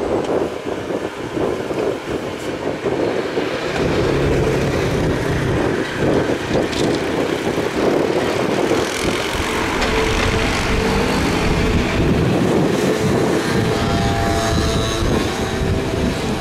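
Engine of a small single-engine propeller plane on approach, mixed with road traffic noise, with the propeller's drone coming through more clearly near the end.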